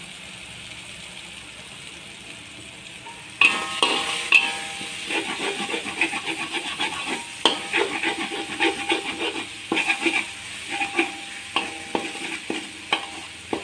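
Spice paste sizzling in oil in a wok. About three and a half seconds in, a metal spatula starts stirring and scraping it against the wok, with frequent scrapes and knocks that ring briefly.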